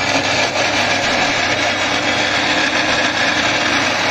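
Electric mixer grinder running steadily at full speed, grinding the cooked masala for a curry gravy into a paste.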